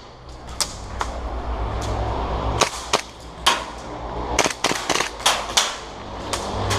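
Airsoft guns firing irregular single shots: sharp snapping pops at uneven spacing, some in quick pairs, over a steady low rumble.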